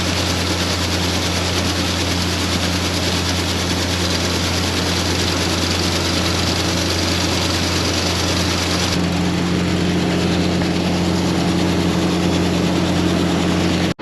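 Farm tractor engine running steadily, a low drone with a steady hiss over it. About nine seconds in the hiss softens and the engine note shifts.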